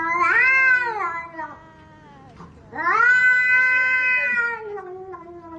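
A grey domestic cat yowling at a reaching hand in one long, drawn-out call that swells twice, rising in pitch and then sinking back to a lower held note.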